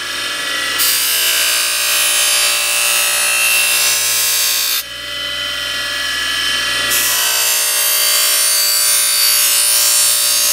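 Bench buffer motor running with a steady hum while a steel knife edge is held against a rigid buffing wheel charged with chrome rouge, polishing off the wire edge. The blade on the wheel adds a high hiss in two passes of about four seconds each, broken by a pause of about two seconds when the blade is lifted off.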